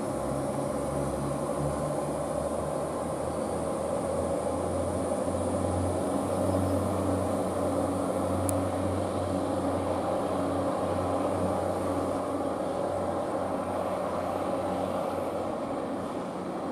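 Northern Ireland Railways Class 3000 diesel multiple unit pulling away, its underfloor diesel engines running with a steady low drone that tails off near the end as the train draws away.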